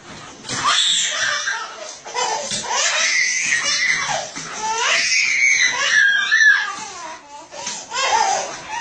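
A toddler's high-pitched voice squealing and crying out in long, gliding cries, almost without a break.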